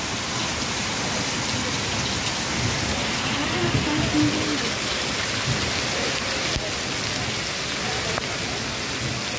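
Heavy rain pouring steadily onto a flooded street, an even hiss of rain on standing water.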